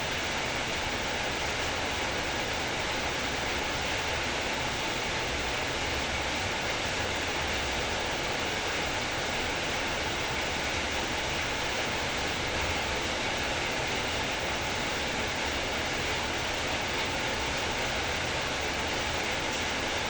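Heavy rain falling steadily, an even, unbroken rush of noise.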